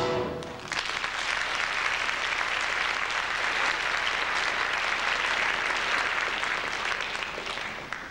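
Audience applauding, swelling in under a second and fading away near the end.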